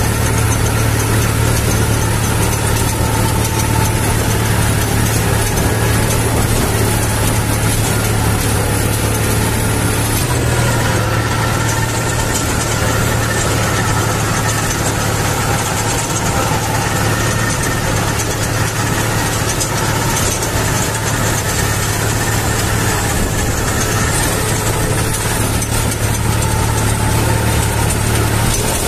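New Holland 3600-2 Excel tractor's diesel engine running steadily under load while pulling a rotary tiller through soil, heard close up from the driver's seat. The steady engine drone shifts slightly in tone about ten seconds in.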